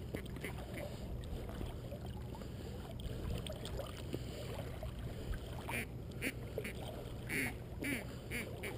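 A few short duck quacks between about six and eight seconds in, over a steady low rumble.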